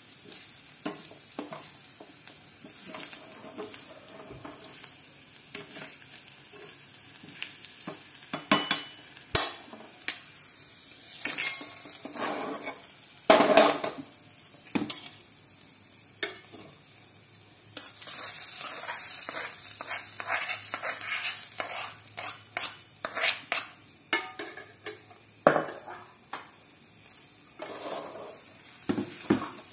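A spoon stirring and scraping food in a small black wok over a gas flame, with a light sizzle of frying. About halfway through, the wok is tipped and scraped out into a steel pot with a burst of loud knocks and scrapes, followed by more stirring and clinks of the spoon against the steel pot.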